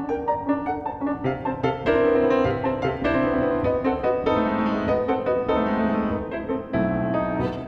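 Piano trio playing classical chamber music, led by a Steinway nine-foot concert grand piano in quick passages of many notes, with violin and cello.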